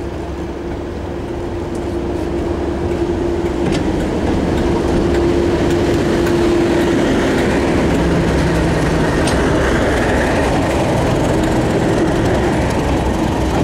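Class 37 diesel locomotive D6700, its English Electric V12 diesel engine running with a steady hum as it comes up and passes close by. The sound builds over the first few seconds and then holds loud.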